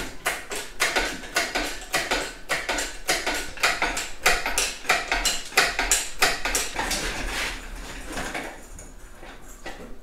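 Hoist chains clinking and rattling against metal as an engine hoist lifts a tractor's front pedestal, a quick run of sharp metallic clinks that thins out toward the end.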